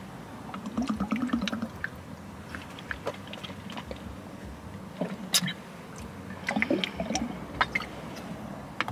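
A person drinking in gulps, with liquid sounds, small clicks of the container and swallows. There are louder bursts about a second in and again about six and a half seconds in.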